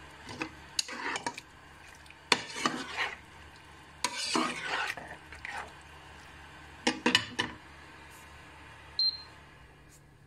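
Metal slotted spatula stirring and scraping pork pieces, bell pepper, onion and pineapple around a stone-coated frying pan in about five short strokes, over a steady low sizzle from the pan.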